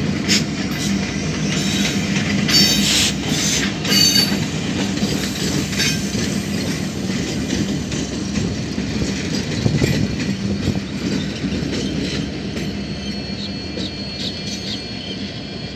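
A pair of EMD diesel-electric locomotives running light, their engines droning steadily while the wheels click over rail joints. A brief high wheel squeal comes about three to four seconds in, and the sound slowly fades as the locomotives move away.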